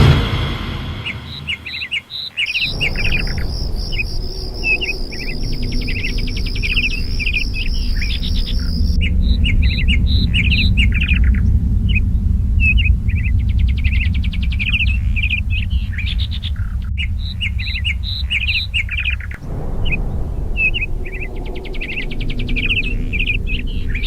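Birds chirping, many short repeated chirps, over a steady low rumble. A steady high trill, like an insect's, runs alongside for several seconds near the start.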